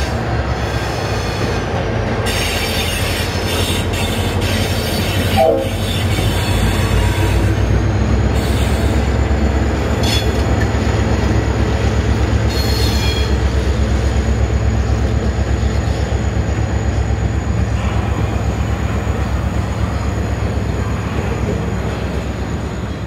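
Freight train hauled by diesel-electric locomotives, the trailing one an EMD CLP-class streamliner, passing close by: heavy engine rumble and a fast steady clatter of wheels over the rail. A thin high wheel squeal runs through from about a third of the way in. There is a brief sharp sound about five seconds in.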